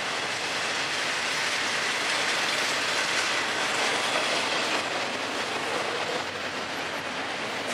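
Double-stack container well cars of a Florida East Coast Railway intermodal freight train rolling past, a steady noise of steel wheels running on the rails, a little louder mid-way through.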